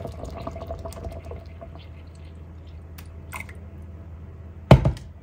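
Warm milk poured from a jug into a steel pot of rice pudding, a liquid pouring and splashing sound that tapers off after about two seconds. A couple of light clicks follow, then a single loud thump near the end, over a steady low hum.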